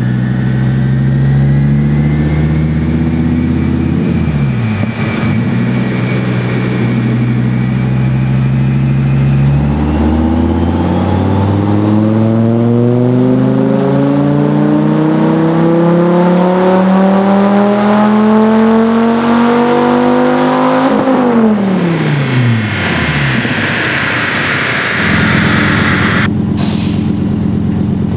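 Dodge Viper's 8.4-litre V10 with a full catted Belanger exhaust, running on a Dynojet chassis dyno. It runs steady in gear, then from about ten seconds in makes a full-throttle pull that rises smoothly in pitch for about eleven seconds. Then the throttle is shut and the revs fall away quickly, settling to a steady lower running near the end.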